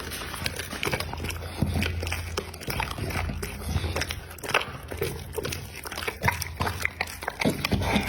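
American Pocket Bully dog chewing and smacking on its food, a run of irregular wet clicks and bites.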